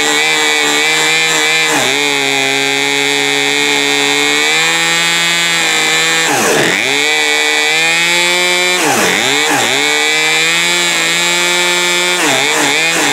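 Poulan Pro PP4218A 42cc two-stroke chainsaw engine running at idle while its carburettor screws are turned with an adjusting tool. Its pitch steps up a little about four seconds in, and several times the engine speed sags sharply and picks back up.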